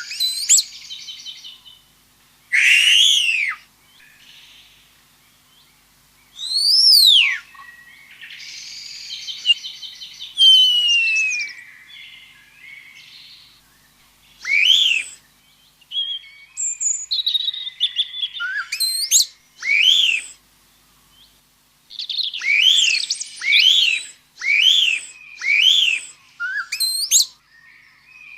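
Birds calling and singing: a mix of clear down-slurred whistles, chirps and trills, then in the second half a series of sharp arched calls about once a second.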